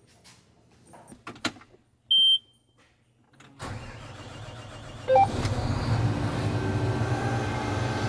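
A John Deere combine's diesel engine being started: a short warning beep, then the starter cranking for about a second and a half before the engine catches and settles into a steady run.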